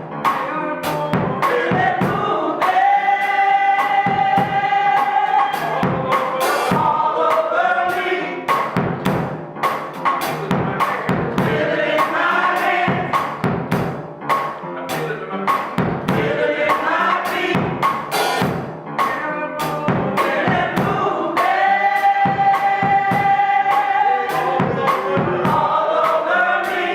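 Gospel music in church: singing over a steady drum-kit beat, with a long held note at about 3 to 6 s and again near the end.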